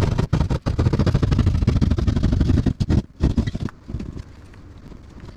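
Drywall being cut by hand with a bladed hand tool: rapid rasping sawing strokes through the wallboard for about three seconds, a short pause, a brief further burst, then quieter scraping. The board is water-damaged drywall being cut out around the plumbing.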